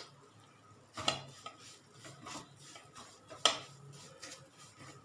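Silicone spatula scraping and knocking against a nonstick kadhai while stirring semolina roasting in ghee: irregular strokes, the loudest about three and a half seconds in.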